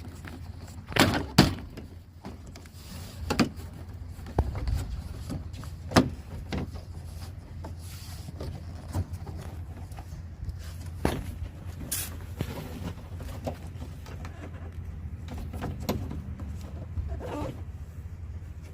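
Irregular clicks, knocks and rattles of hand work on a 1994 Ford F-150 pickup's door as the door lock piece and interior trim panel are fitted back on, with a low steady hum underneath.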